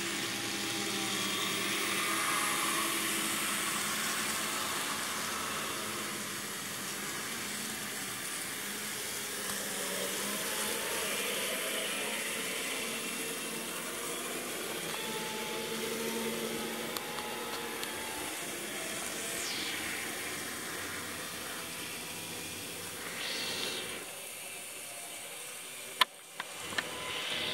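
N-scale model trains running on the layout: a steady whir of small motors and wheels on track. A sharp click sounds near the end.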